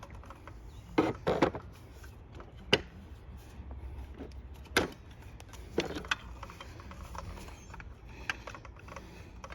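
Scattered clicks and knocks of a circular saw being handled and worked on by hand, with the loudest cluster of clacks about a second in and single sharp knocks near three and five seconds.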